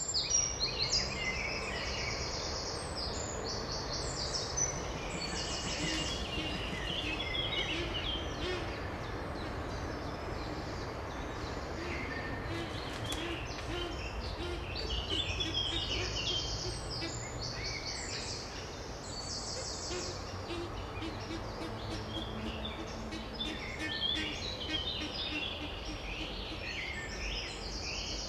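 Small songbirds singing in chorus: many overlapping high, fast trills and chirps, with a low hooting note repeated steadily underneath and a low background rumble.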